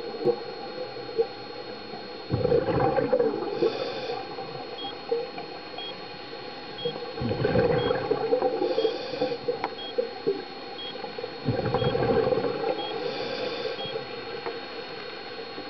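Scuba diver breathing through a regulator underwater: a hissing inhale followed by a long rush of exhaled bubbles, about every four to five seconds. A faint electronic beep repeats about once a second through the middle.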